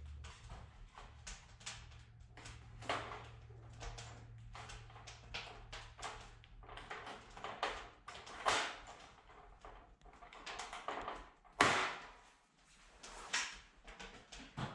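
Irregular light clicks and knocks, as of tools and materials being handled, with one sharper knock about two-thirds through. A low steady hum fades out over the first few seconds.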